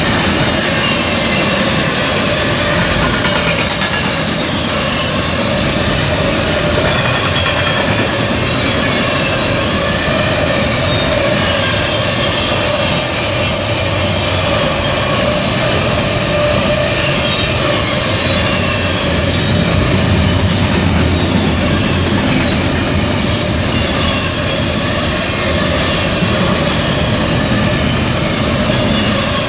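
Freight train cars rolling through a grade crossing: a loud, steady rumble of steel wheels on the rails with high, wavering wheel squeal.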